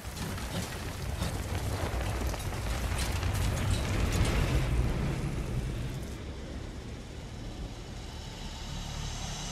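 Drilling mud blasting up out of the well and raining down hard onto the rig deck: a rushing, spattering downpour over a deep rumble. It builds to its loudest about four to five seconds in, then eases. This is the sign of the well kicking toward a blowout.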